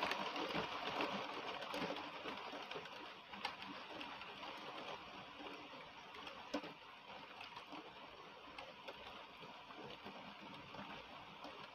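Heavy rain falling steadily: a dense hiss of drops with scattered sharper drip ticks, growing a little fainter over the seconds.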